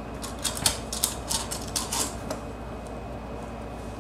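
Hands working short hair into a roll: a rapid run of light clicks and rustles for about two seconds, thinning out after that.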